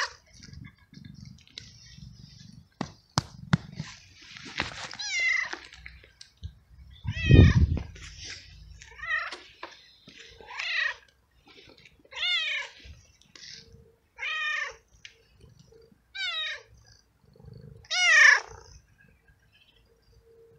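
Tabby tom cat in heat meowing loudly over and over, about eight long calls that each fall in pitch, one every second or two. It is calling for a female and asking for food.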